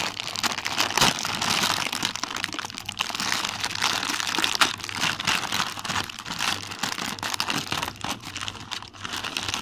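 Plastic wrapper of an instant noodle packet crinkling and crackling as it is handled and torn open, a continuous run of small crackles.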